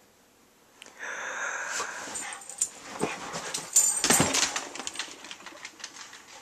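Husky-mix dog whining and vocalizing, loudest about four seconds in. Near the end her claws click on a hardwood floor as she trots off.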